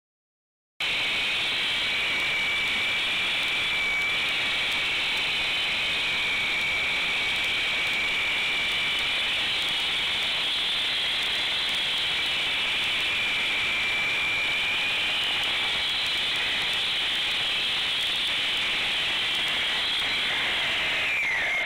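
Concrete saw cutting through a concrete slab: a loud, steady high whine that starts about a second in, with its pitch dropping near the end.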